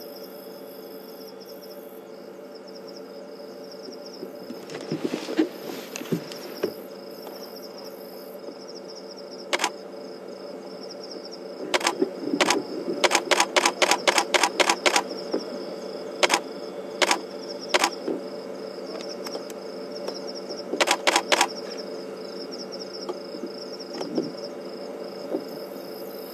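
Camera shutter firing in short bursts, including a fast run of a dozen or so clicks near the middle, over a steady chorus of night insects.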